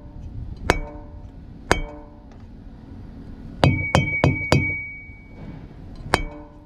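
Aluminium tire-checker bat striking semi-trailer tires. Single knocks about a second apart on a low, wire-showing tire are followed by four quick strikes on the neighbouring tire, which leave a high ringing tone. One more knock comes near the end.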